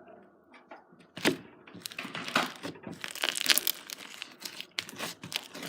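Homemade slime being kneaded and pulled apart by hand, giving irregular crackling and tearing sounds. The slime is still a little sticky.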